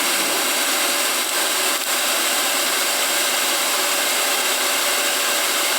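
Hand-held hair dryer running steadily: an even rush of blown air with a faint motor whine.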